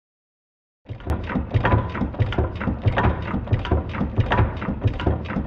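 Single-cylinder hopper-cooled hit-and-miss engine running, coming in about a second in, its valve gear and crank clattering in an even rhythm of about four ticks a second.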